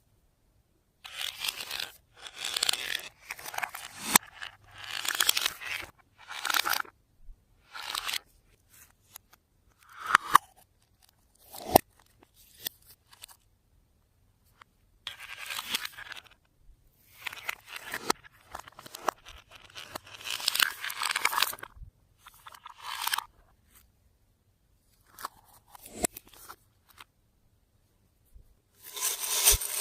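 Slime being worked and stretched by hand, in noisy bursts of a second or two with short pauses between and a few sharp clicks.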